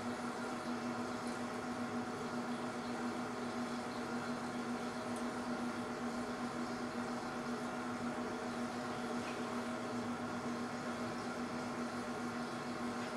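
Steady electrical equipment hum with fan noise: one strong low tone over a constant whir, with fainter higher tones above it, unchanging throughout.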